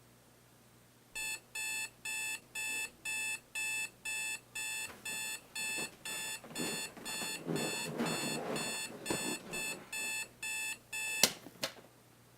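Electronic alarm clock beeping, about two beeps a second, with rustling midway through. The beeping cuts off with a sharp click near the end as the alarm is stopped.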